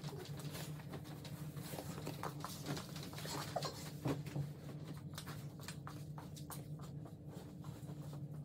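Bedding rustling and being handled, with scattered short soft rustles and taps that come thicker in the second half, over a steady low hum in the room.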